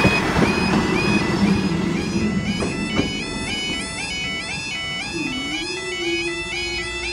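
Level crossing yodel alarms warbling in a fast repeating pattern as the tail of a diesel multiple unit rumbles past the crossing. After about two seconds the train noise fades and a second alarm layers in. Near the end a low steady hum sets in as the barriers begin to rise.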